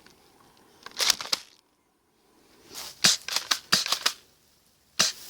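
Airsoft pump-action shotgun being handled: sharp plastic-and-metal clacks in quick clusters, a group about a second in, a longer run of clacks around three to four seconds in, and a single sharp clack near the end.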